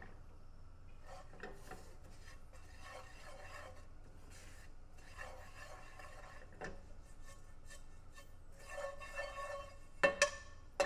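Silicone spatula scraping and stirring dry breadcrumbs around a nonstick frying pan as they toast. Two sharp knocks near the end.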